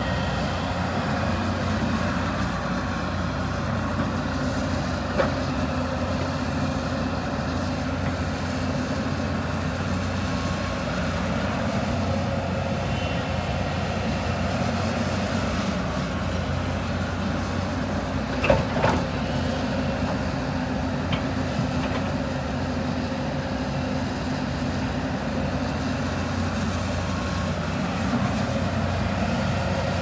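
Hyundai 220 crawler excavator's diesel engine and hydraulics running steadily under load as it digs and dumps soil. Sharp knocks come twice, the loudest about two-thirds of the way through.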